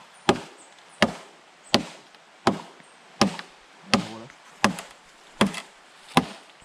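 Steady chopping blows into a hollow bamboo stalk: nine sharp knocks about three-quarters of a second apart, each with a short hollow ring.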